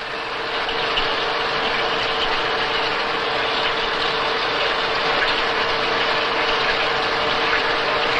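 Six-spindle automatic lathe running and turning a high-tensile steel gear blank: a steady hiss of machining with a constant mid-pitched whine, fading up over the first second.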